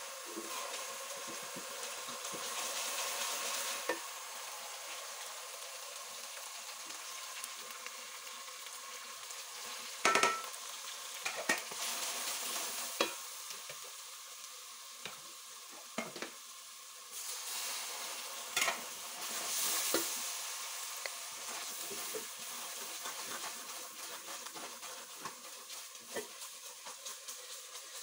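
Onions and spices sizzling in hot oil in a metal pot, stirred with a wooden spatula that now and then knocks and scrapes against the pot, with the sharpest knock about ten seconds in.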